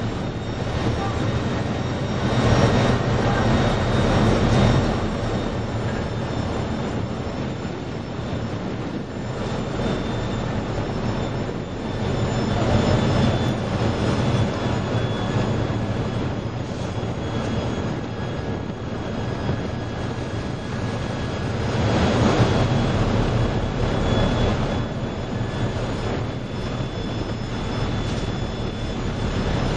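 Tugboat engines running steadily with a low rumble and a constant high whine, under loud wind and sea noise that swells up about every ten seconds.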